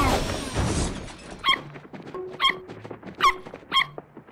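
A whoosh sound effect fades out in the first second. It is followed by a few short, sharp clops about a second or less apart, each with a squeaky ring: cartoon zebra hooves clopping as the herd walks.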